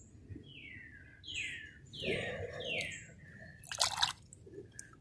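A bird calling a series of four whistled notes, each sliding down in pitch. Just before the end comes a short loud rustle or scrape.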